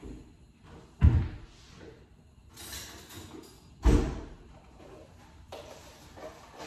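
Two loud slams, like a door being shut hard, about three seconds apart: one about a second in and one near four seconds. Each dies away over about half a second.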